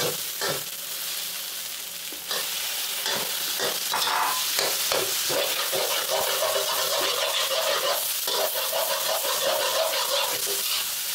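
A metal spatula scraping and stirring in a metal wok while egg, tomato and tofu fry with a steady sizzle. The sound is a little quieter for the first two seconds, then louder, with frequent short scrapes.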